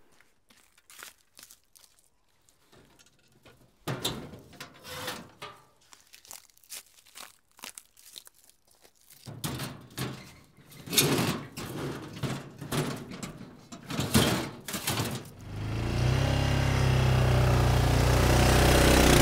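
Scattered clattering knocks of metal parts being handled, then about three-quarters of the way in an ATV engine comes in and runs steadily and loudly.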